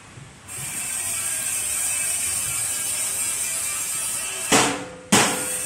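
Background music starts about half a second in with a steady hissing wash, and a regular beat of sharp hits about every 0.6 s begins near the end.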